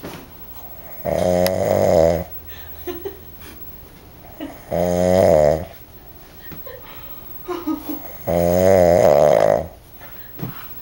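A sleeping man snoring loudly: three snores at about three-and-a-half-second intervals, each about a second long, with a buzzing tone that wavers in pitch.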